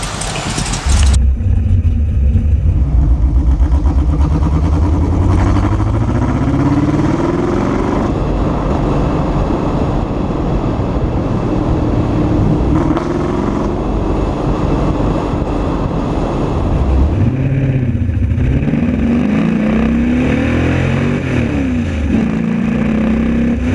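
GM LS3 V8 of an RCR Ferrari 330 P4 replica running under way. The revs climb for a few seconds, settle, then rise and fall several times near the end as it accelerates and slows.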